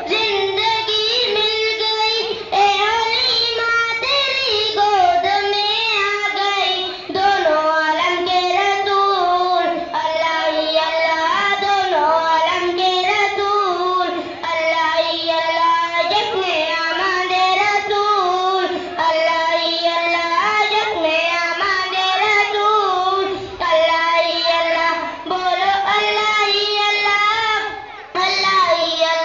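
A boy singing a naat (an Urdu devotional poem in praise of the Prophet) into a microphone, his solo voice amplified over a PA loudspeaker, in long melodic phrases with short breaks between lines.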